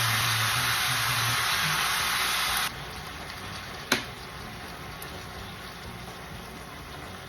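Pork and kimchi sizzling in a hot frying pan, loud at first, then dropping abruptly to a quieter sizzle about two and a half seconds in. There is a single sharp clink about four seconds in.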